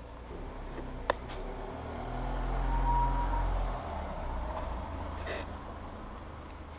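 A motor vehicle passing by on the street, its engine rumble swelling to a peak about three seconds in and then fading away. A single sharp click about a second in.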